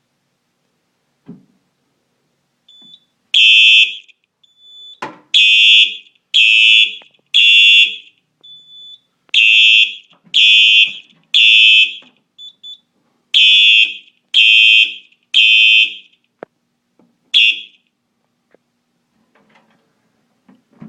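Simplex 4903-9236 electronic horn strobe sounding a fire alarm in the temporal-three evacuation pattern: three loud, high-pitched blasts, a pause, then three more. It is set off by a smoke detector test. After three groups of three and one last blast, it stops.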